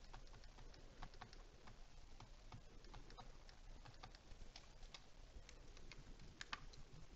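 Faint, irregular light clicks and taps of a pen stylus writing on a tablet screen, several a second.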